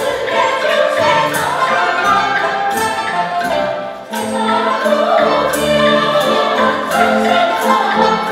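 Women's choir singing with string orchestra accompaniment, with a brief dip in loudness about four seconds in.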